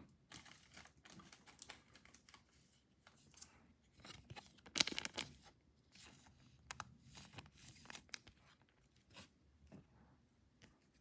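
Thin clear plastic card sleeve crinkling and rustling as a trading card is handled and slid into it, in short soft scrapes and clicks with a louder rustle about five seconds in.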